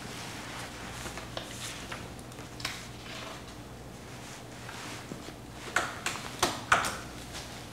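Paper documents being handled while they are read and signed: faint rustling of pages over a low room hum, with a handful of light clicks and taps about six seconds in.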